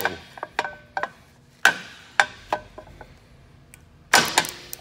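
Ratcheting wrench clicking and clanking on the nut of a wiper motor's crank arm, in irregular sharp metallic knocks, some ringing briefly, with a heavier cluster of knocks near the end as the nut fights the wrench.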